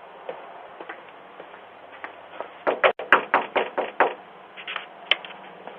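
A quick run of about ten sharp knocks or taps lasting a second and a half, with a few single clicks before and after. It is picked up by a doorbell camera's microphone over a steady hiss.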